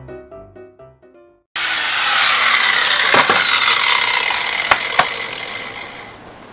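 Piano music for the first second and a half, then an angle grinder winding down after being switched off: its high whine falls steadily in pitch and fades, with a few sharp knocks along the way.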